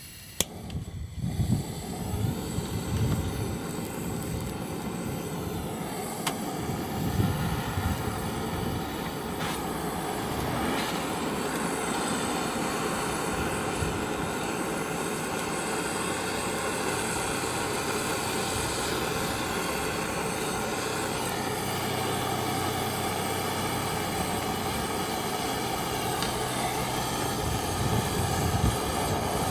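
A steady mechanical drone with a high whine, starting about a second in and running evenly, with a few knocks in the first several seconds.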